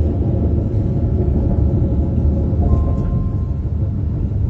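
Steady low rumble of a moving train heard from inside the passenger carriage, with a faint steady hum and a brief higher tone about three seconds in.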